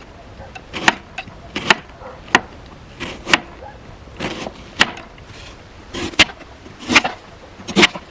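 Firewood being split into smaller pieces: sharp wooden knocks, roughly one a second.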